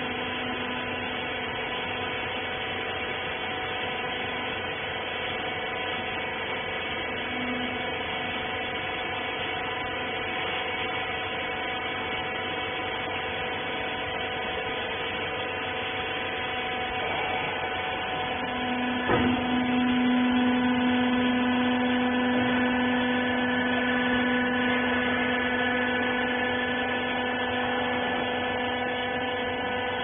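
Rags baler's hydraulic power unit running with a steady machine hum. About two-thirds through, a click, then the hum grows louder with a stronger low tone for about ten seconds before easing back.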